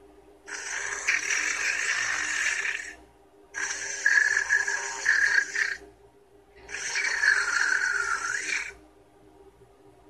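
Anki Vector robot's small speaker playing its synthetic snoring sound, the sign that the robot is asleep on its charger. It comes as three breath-like swells, each about two seconds long, with a wavering pitch that dips in the last one.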